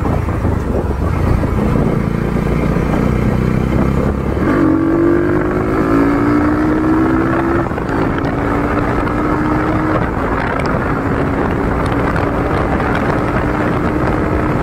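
Bajaj Pulsar NS200's single-cylinder engine running through a custom aftermarket exhaust on the move, with a deep bassy note. Its pitch climbs from about four and a half seconds in, drops back near eight seconds, then holds steady.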